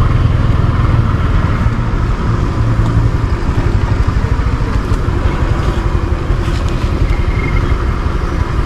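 Motorcycle running along at a steady speed, heard from the rider's seat, with a heavy low rumble.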